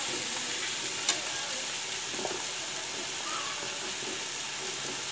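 Steady sizzling of tomato, onion and drumstick cooking in a pan on the stove, with a single sharp click about a second in.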